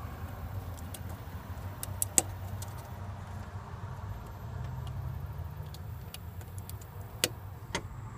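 A few sharp plastic clicks and knocks as a wiring connector is worked back into its socket, the loudest about two seconds in and two more near the end, over a steady low hum.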